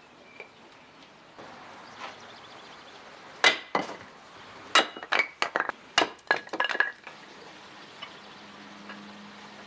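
Hatchet splitting firewood into kindling on a chopping block: a quick series of about ten sharp knocks with a bright, clinking ring, in the middle of the stretch.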